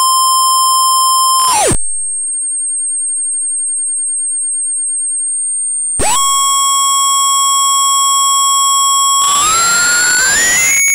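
Electronic tone from a miswired NE555 timer oscillator jumping between states. A steady buzzy tone with overtones breaks in a short burst of hiss into a single thin high whistle. About six seconds in it snaps back to a buzzy tone, which dissolves into noisy chaos near the end as its pitch glides upward.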